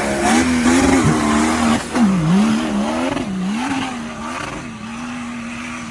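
Off-road 4x4 engine revving hard under load, its pitch dipping and climbing again a few times before holding at a steady high rev, over a loud rushing noise.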